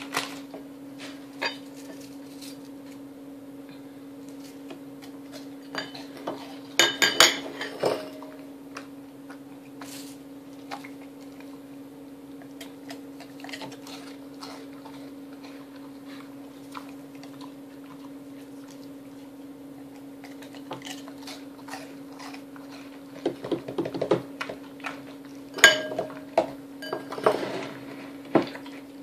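Glass beer mug and ceramic bowl knocking and clinking on a wooden table as they are set down and handled. The clinks come in two short clusters, about seven seconds in and again near the end, over a steady low hum.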